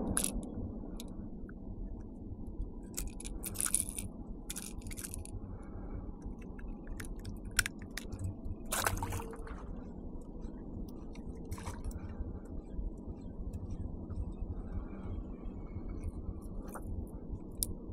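Small fish being handled and unhooked from a lure: scattered clicks, scrapes and rattles of the hook and tackle, with one louder burst about nine seconds in, over a low steady rumble.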